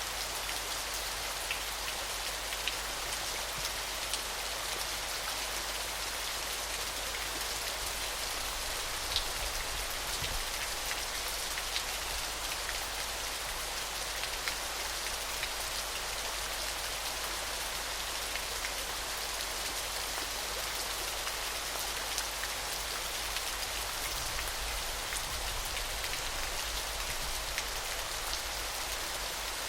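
A waterfall: a steady rush of falling water, with small droplet splashes ticking through it now and then.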